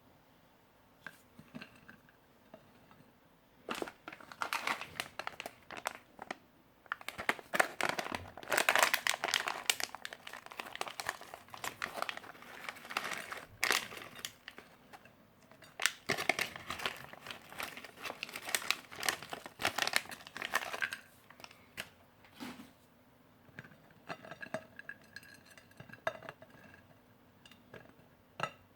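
Plastic and foil ration packaging crinkling and rustling as it is handled. It is loudest in two long stretches through the middle, with lighter scattered clicks near the end.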